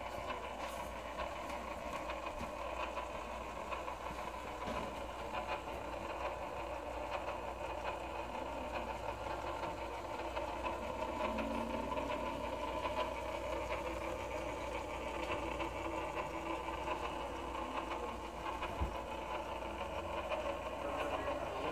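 Bell & Howell Filmo Master film projector running: its motor and mechanism make a steady, rapid clatter.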